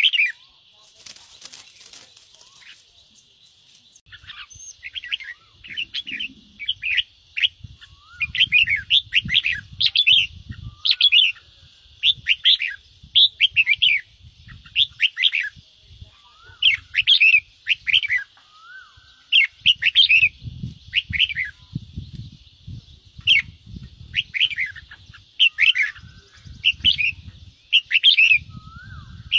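Red-whiskered bulbul giving harsh, agitated 'ché' calls: short, sharp downward-sweeping notes in rapid clusters, one after another, over a steady high hiss. Low fluttering rumbles come and go underneath from a few seconds in.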